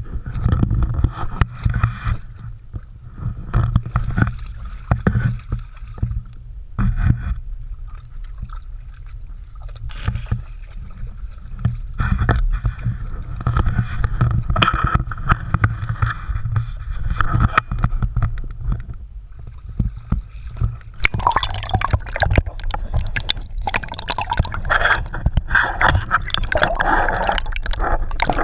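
Shallow stream water splashing and gurgling against a GoPro Hero3 in its waterproof housing as a dog wades through it, muffled with a heavy low rumble. Later the camera dips under the surface and the sound turns to a busier underwater bubbling and gurgling.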